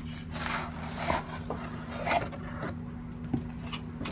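Cardboard shipping carton being handled as a boxed item is slid out of it: a few scraping rubs of cardboard, then a short knock a little after three seconds in.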